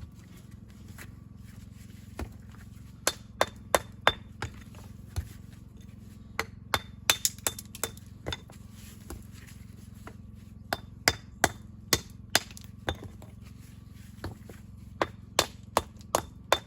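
Hammer blows on stone, sharp separate strikes at irregular intervals, often in quick runs of two to four, over a steady low hum.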